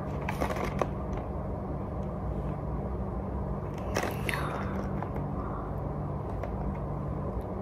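Steady low room hum, with a few light clicks and a brief crackle about four seconds in as a slime kit's plastic blister pack is handled.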